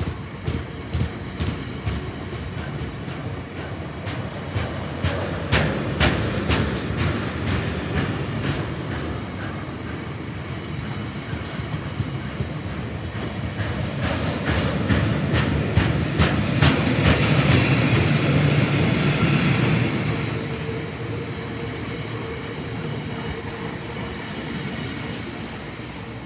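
Freight train of rail tank wagons rolling past, wheels clicking over rail joints in quick clusters over a steady rumble. The rumble swells in the middle, then fades near the end as the last wagon goes by and away.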